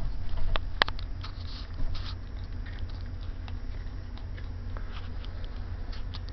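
Young puppies nursing on their mother: soft suckling and smacking with scattered small clicks, one sharper click about a second in, over a steady low hum.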